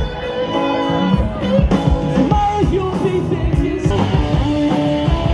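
Rock-style music with a sung melody, guitar and a steady beat.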